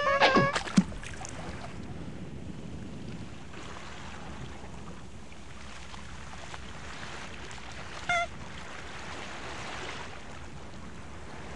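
Steady sea ambience of lapping water and wind hiss. A squeaky call and a sharp knock come in the first second, and a short high squeak about eight seconds in.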